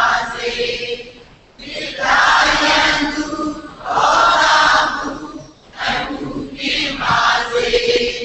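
Buddhist chanting by a group of voices reciting together, in phrases broken by short pauses.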